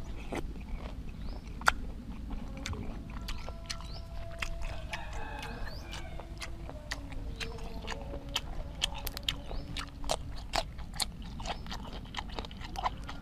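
Close-up chewing of grilled apple snail meat and raw yardlong bean, with many sharp, crisp crunches coming faster in the second half.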